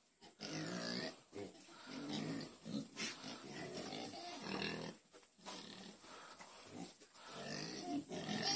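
Several pigs grunting in short, repeated calls with brief gaps between them, getting louder near the end.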